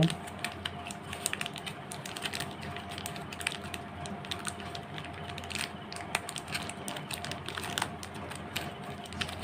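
Foil condom wrappers crinkling and crackling as fingers handle and squeeze them, a run of small irregular clicks.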